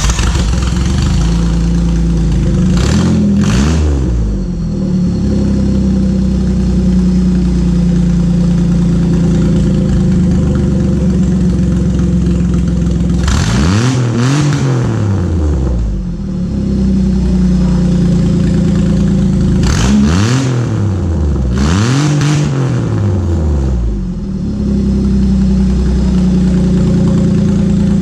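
Holden VX Commodore's Ecotec 3.8 L V6 idling through straight-piped race side-pipe exhaust, just fired up. The throttle is blipped several times: briefly about 3 s in, a longer rev around 14 s, and two more near 20 and 22 s, each rising and falling back to idle. It is very loud, with the echo of the shed.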